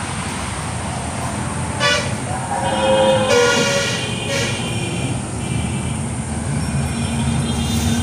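Vehicle horns honking in passing highway traffic, several honks about two to four and a half seconds in, over a steady low rumble of traffic.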